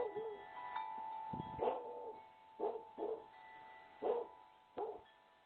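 A dog barking, about six short barks spaced out over a few seconds, over a steady high ringing tone.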